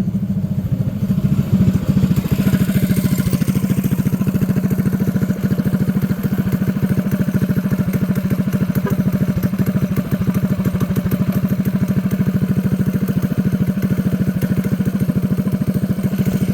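Predator 212cc single-cylinder four-stroke engine on a mini bike running steadily, firing evenly without cutting out, with a short rise in engine speed about two seconds in. The chafed kill-switch wire that made it die has been repaired.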